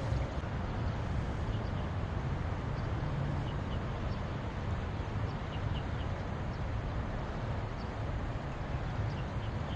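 Steady wind rumble on the microphone, with a few faint short bird chirps scattered through it.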